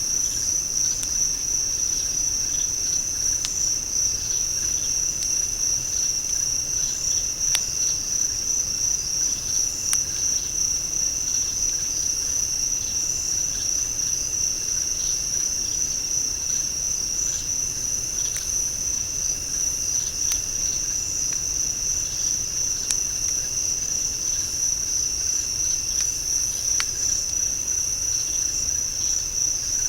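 Night chorus of crickets calling, a steady high-pitched trill with a second, lower steady trill beneath it. A few faint sharp clicks are scattered through it.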